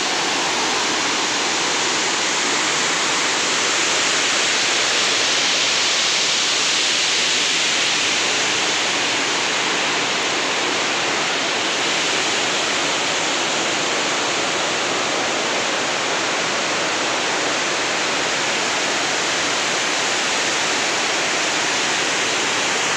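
Loud, steady rush of a mountain waterfall and the stream below it cascading over rocks.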